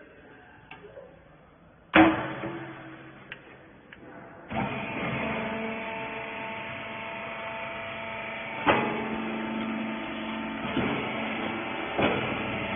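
A loud metallic bang about two seconds in, then a few light clicks. From about four and a half seconds in, a clothes baling press's hydraulic power unit runs with a steady hum of several constant tones, broken by sharp knocks twice near the end.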